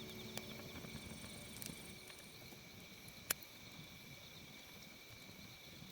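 Faint, steady chirring of insects such as crickets, with one sharp click about three seconds in. The last of the background music fades out in the first second or so.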